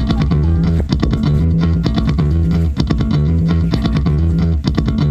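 Background music: guitar and bass over a steady beat.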